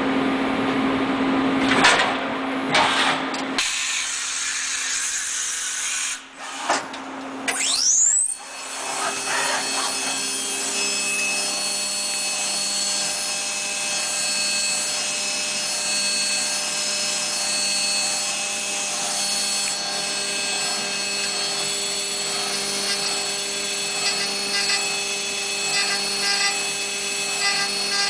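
Hermle C800U CNC machining centre milling steel: the spindle runs steadily while the cutter works the part. A few seconds in the cutting stops. A quick tool change follows, with sharp clunks and knocks, and the spindle whines up to speed again. Milling then resumes with a steady hum and cutting noise.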